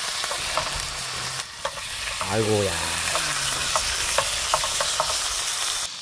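Meat sizzling and frying on a hot pan: a steady hiss with scattered sharp pops of spitting fat.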